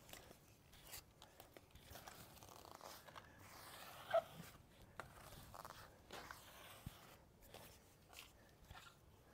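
Grout float scraping and swiping grout across mosaic pool tiles in short, faint strokes, pressing it into the joints, with one brief louder squeak about four seconds in.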